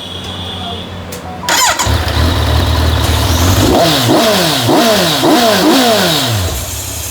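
Kawasaki Z900's inline-four engine on its stock exhaust, idling, then revved in a quick run of about five throttle blips from about halfway, settling back to idle near the end.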